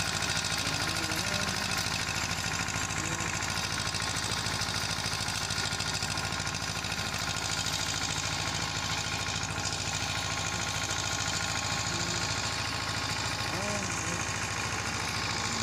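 Escorts 335 tractor's three-cylinder diesel engine running steadily under load while pulling a rotavator through dry soil.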